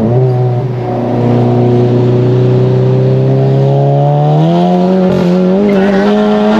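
Turbocharged 2.0-litre four-cylinder of a Volkswagen MK7 GTI, fitted with an EQT IS38+ turbo, pulling hard, heard from inside the cabin. The engine note drops right at the start as it shifts up, then climbs steadily through the gear, rising faster about four seconds in.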